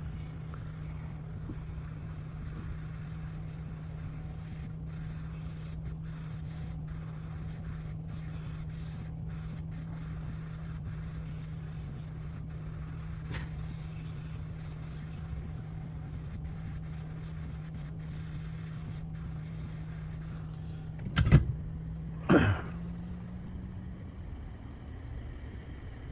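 Heat gun running with a steady low hum, warming the phone screen to soften its adhesive. Two sharp knocks come about three-quarters of the way through, and the hum stops shortly before the end.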